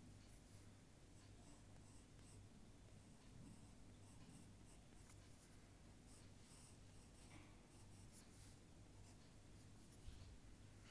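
Faint scratching of a drawing tool on paper, in many short strokes.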